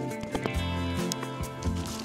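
Background music with held bass and chord notes and light percussive hits.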